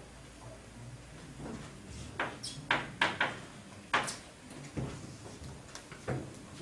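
Chalk tapping and scraping on a blackboard as code is written: a run of short, sharp taps, most of them from about two seconds in.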